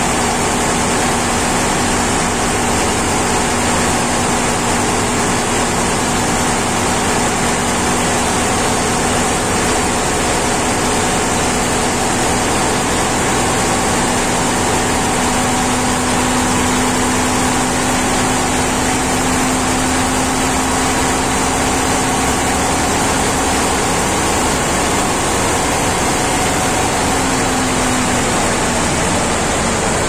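MAN B&W auxiliary diesel generator engine running loud and steady while its speed is raised toward the overspeed trip. Its tone climbs slightly in pitch over the middle of the stretch.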